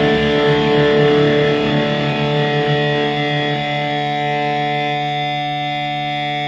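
Telecaster-style electric guitar played through the Bad Cat Siamese Drive pedal with both overdrive circuits stacked (cascaded) on a lead setting, into a Bad Cat combo amp. A distorted note is struck and left to ring with long sustain, slowly fading.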